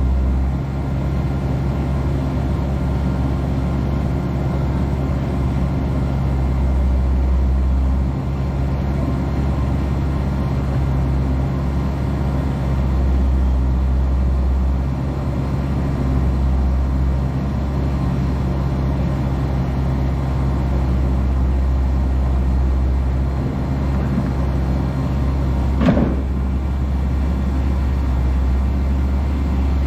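A vehicle engine running steadily at idle, a continuous low rumble, with a single sharp knock near the end.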